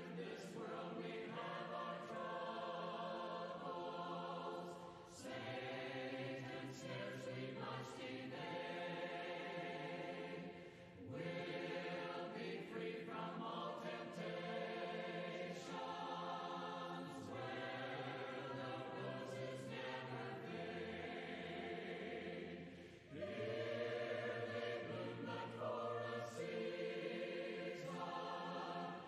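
A choir singing a gospel hymn, line by line with brief pauses between phrases.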